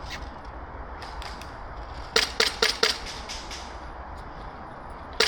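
Airsoft gun firing nearby: a quick string of about five sharp shots a little over two seconds in, with a few fainter, more distant shots earlier.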